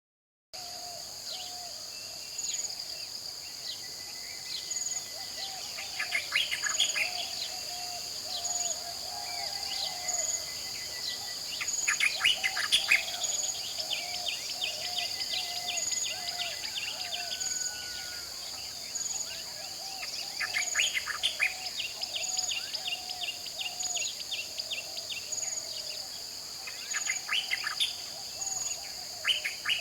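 Wildlife ambience: a steady high insect drone with a higher chirp pulsing about once a second, a lower warbling chorus beneath, and birds breaking in every six or seven seconds with short, fast trills.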